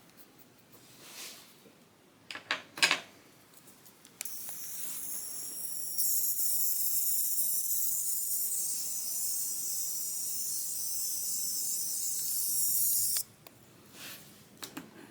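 Steady high-pitched hiss lasting about nine seconds, stepping louder partway in and cutting off suddenly, preceded by a few soft short rustles.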